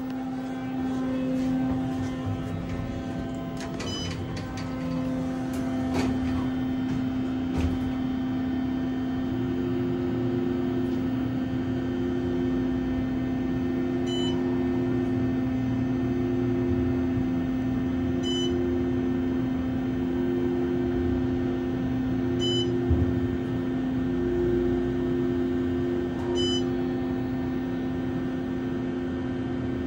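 OTIS Series 5 hydraulic elevator car in motion, heard from inside the car: a steady low hum, joined about a third of the way in by a pulsing tone, with short high beeps every four seconds or so.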